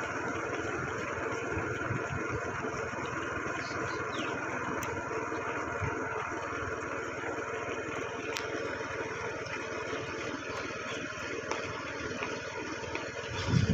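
A vehicle engine running steadily at a low speed, with road noise.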